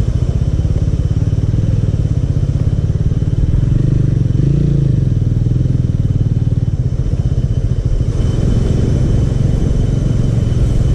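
Motor scooter's small engine running steadily, its pitch rising briefly and falling back about four seconds in.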